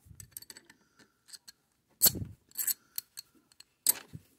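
Small metal clicks and scrapes of a steel bearing race being worked along a lead screw shaft, with two sharper metallic clicks about two and four seconds in.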